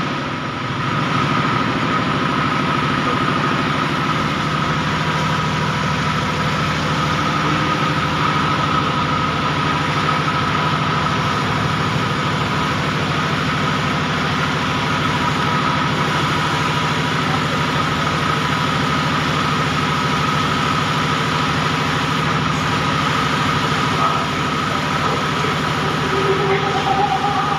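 An engine idling steadily, with a steady high tone riding over the hum.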